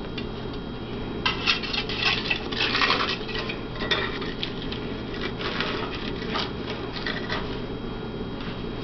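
Pair of metal pot lifters clicking and scraping against the potter's wheel head as they are slid under a freshly thrown clay pot and the pot is lifted. The clicks come in clusters, busiest in the first few seconds and lighter later.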